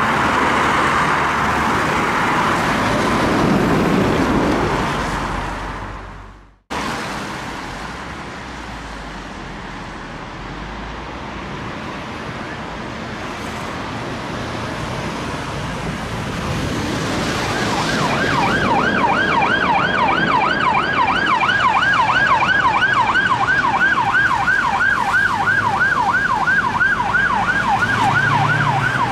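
Road traffic passing, broken by a sudden cut about six seconds in. From about eighteen seconds a UK police car's siren sounds in a fast yelp, rising and falling about three to four times a second until the end.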